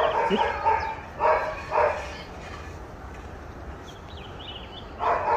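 Young Labrador retriever puppy barking: several short barks in the first two seconds and another near the end.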